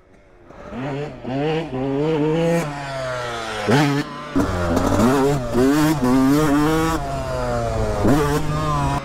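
Yamaha YZ250F four-stroke motocross bike accelerating toward a jump, its engine note climbing and dropping several times as the rider rolls on the throttle and shifts gears. The rider gives a burst of throttle on landing to soften the impact.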